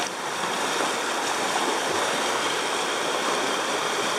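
Shallow, fast mountain river rushing steadily over a stony gravel bed.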